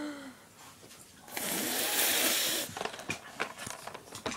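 A loud rush of handling noise for about a second and a half as the recording device is moved, then quick sharp plastic clicks and rattles as a Tomy children's game is played, getting busier toward the end.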